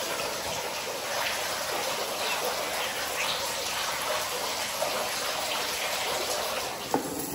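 Water running and splashing steadily, as a continuous even rush.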